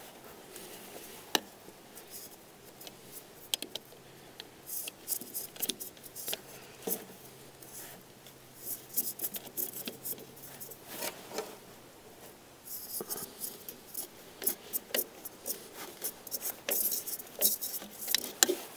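Irregular clicks, scrapes and rubbing of metal and plastic parts as an outdoor wood boiler's primary air damper motor assembly is slid back onto its intake and secured by hand, the clicks coming thicker in the second half.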